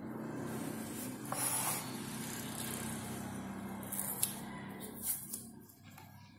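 A low steady hum that fades out after about five seconds. Over it come a short rasp about a second and a half in and a few small clicks from hands working wires and electrical tape.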